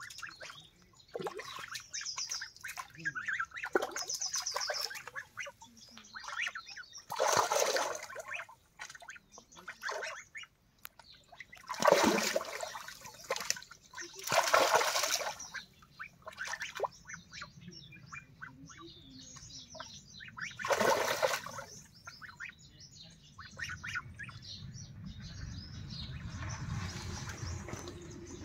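Domestic ducks quacking and splashing as they bathe in a small pool, with four louder splashy bursts spread through.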